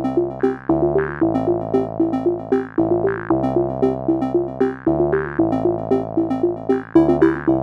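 Outro music: a quick repeating pattern of notes over held low notes that change every second or so.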